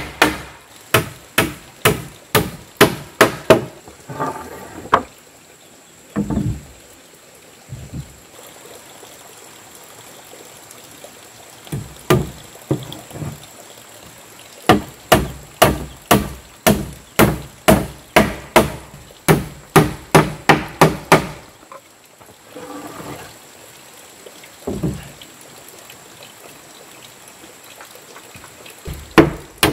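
Hammer nailing rough-sawn wooden planks: runs of quick, sharp blows, about two to three a second, with pauses of several seconds between runs and a few lone strikes near the end.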